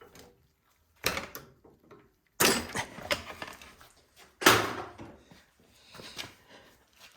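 Workshop handling noises while the snowblower's carburetor fuel lines are taken off: three loud clunks, about one, two and a half and four and a half seconds in, each with a short rattle after it, then quieter clicks and scrapes.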